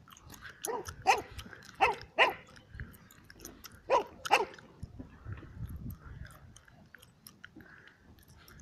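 A dog barking about six times in short sharp barks, mostly in pairs, all in the first half; faint crackling and rumble behind them.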